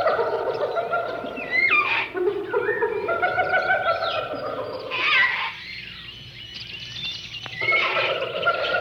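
Short vintage cartoon music stingers playing back to back: wavering held tones broken by quick sliding pitches, then a quieter stretch about five and a half seconds in before another stinger starts near the end.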